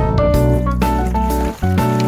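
Background music: piano-led instrumental with bass and drums.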